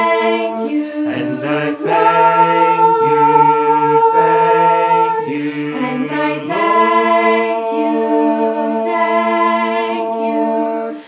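Mixed family choir of men's, women's and children's voices singing a cappella in parts, holding long chords that shift every few seconds.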